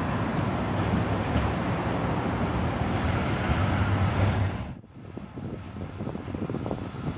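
Tram and street traffic noise, a steady rumble of a CAF Urbos tram running along the street. It breaks off abruptly about five seconds in and gives way to quieter, uneven street noise.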